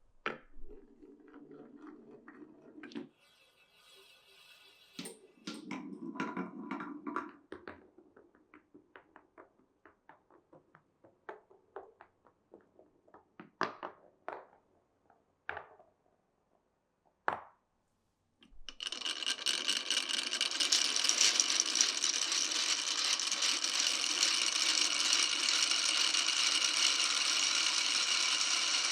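Marbles rolling through wooden marble-run track, with scattered clicks and knocks as they drop and strike the wooden pieces. About two-thirds of the way in, a loud, steady rattling clatter starts and keeps going.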